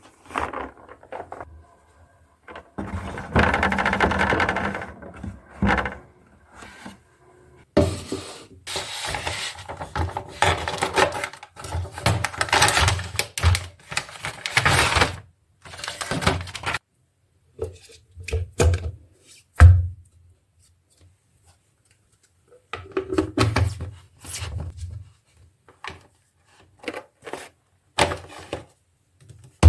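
Kitchen containers and packaging being handled and set down: stretches of rustling and clatter broken by knocks, with one sharp thump about twenty seconds in.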